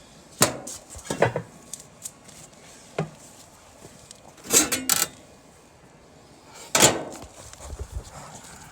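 A handful of sharp metal clanks and rattles, each brief and spaced irregularly, loudest about halfway through and again near the end. They come from sheet metal and tools being handled while a technician opens up an air-conditioning condenser to reach its capacitor.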